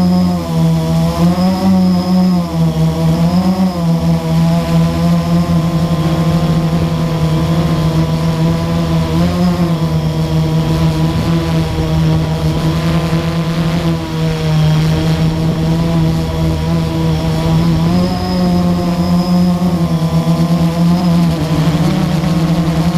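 Blade 350 QX quadcopter's four electric motors and propellers buzzing loud and close, heard from the GoPro on board. The pitch wavers up and down as the throttle changes during lift-off and climb, and holds steady in between.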